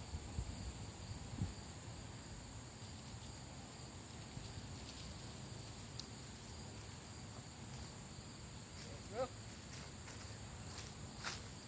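Steady high-pitched chirring of insects in woodland, with a few soft knocks and rustles as rope is handled at a tree. About nine seconds in there is one brief pitched call.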